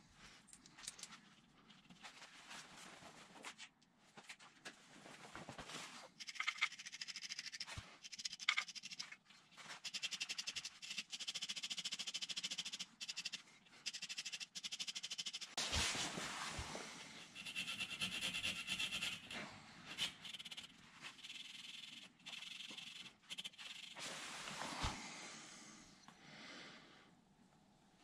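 Cloth rubbed against a scooter's engine casing in long stretches of scratchy swishing, with a few sharp clicks of hand tools.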